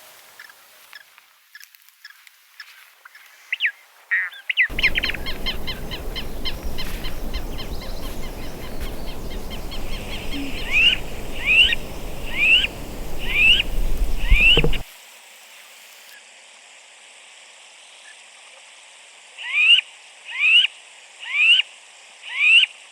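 Wild birds calling in a series of spliced recordings: scattered chirps, then a short upward-sweeping call repeated about once a second, five times and later four times more. A low rumble runs under the middle stretch.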